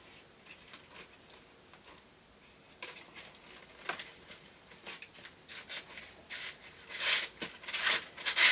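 Fireworks and their packaging being handled: scattered light clicks and rustles that grow into louder crinkling bursts near the end.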